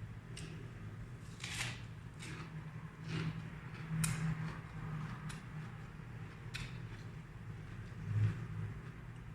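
Close-miked chewing of raw vegetables: irregular crisp crunches, about eight over the stretch, with the loudest a little over four seconds in and just after eight seconds in. A steady low hum runs underneath.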